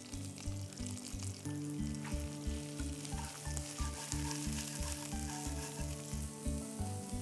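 Sliced onions and curry leaves sizzling in hot vegetable oil in a nonstick pan, stirred with a spatula. Background music with a steady low beat plays underneath.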